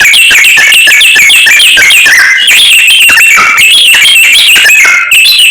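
Samyong songbird singing a loud, nonstop, rapid song of shrill chirps and quick up-and-down whistled notes, breaking off only briefly near the end.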